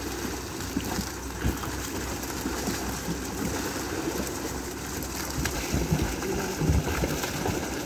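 Water splashing and pouring as a bucket of water and small fish is tipped into a wooden boat's hold, with scattered small knocks and rustles from handling the net.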